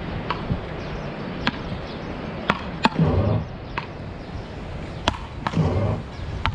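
Rally of beach rackets: wooden paddles hitting a small ball back and forth, a sharp knock about once a second, the near player's hits louder than the far player's. Two short vocal sounds from the players come about three and five and a half seconds in.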